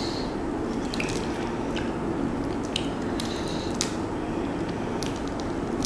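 Cooked shrimp being peeled by hand: scattered small crackles of shell and wet squishing sounds, over a steady low background noise.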